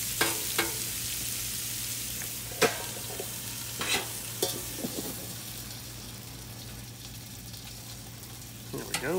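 Sliced peppers and onions sizzling in butter on a Blackstone griddle's steel plate, with several sharp scrapes and clanks of a metal spatula and a stainless basting dome on the plate. After the dome goes over the vegetables about four seconds in, the sizzle is quieter.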